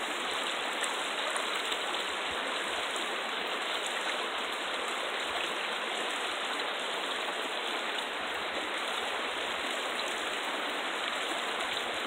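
Shallow, rocky river rushing over stones and riffles: a steady, even rush of water.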